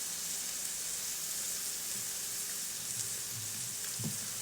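Meat sizzling on a portable tabletop grill pan: a steady frying hiss.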